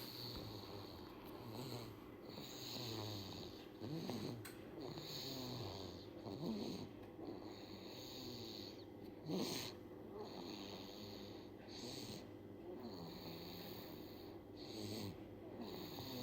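A sleeping baby snoring, a rattling noise on each breath that repeats every couple of seconds, with one louder snort about nine seconds in.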